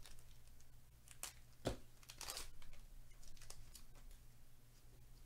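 Foil trading-card pack being torn open by hand, with wrapper crinkles and clicks, a sharp tap about a second and a half in, and a short rip of the wrapper just after two seconds. A faint low hum runs underneath.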